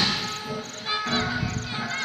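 The bang of an aerial firework shell's launch dying away, then background music with insects chirping while the shell climbs.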